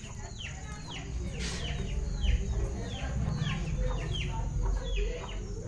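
A bird calling over and over in short chirps, each sliding down in pitch, about two a second, over a low rumble.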